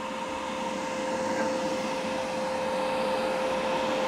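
A small machine running steadily: an even hum with a constant whine and hiss that holds the same pitch throughout.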